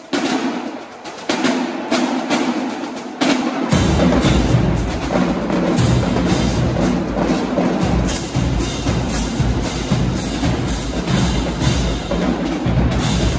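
Marching band drumline playing a cadence: snare drums and crash cymbals open sharply, and bass drums join about four seconds in, after which the full line keeps up a dense, driving rhythm.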